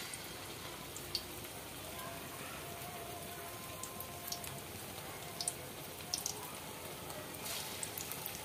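Raw-potato patties frying in hot oil in an aluminium kadai: a steady sizzle with scattered crackles and pops.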